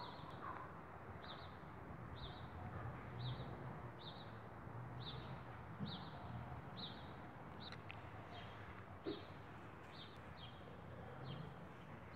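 A bird calling over and over, one short high chirp roughly every second, over a steady low background hum. Two brief soft knocks come about halfway through and again a few seconds later.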